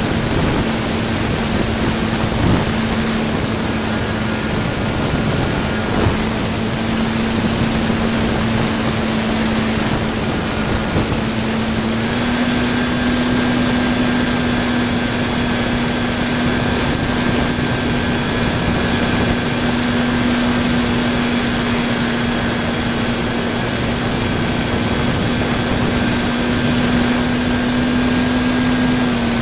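RC park flyer's electric motor and propeller running steadily in flight, picked up close by the onboard camera with wind rushing past. The pitch steps up slightly about twelve seconds in as the throttle is opened a little. There are a couple of faint knocks early on.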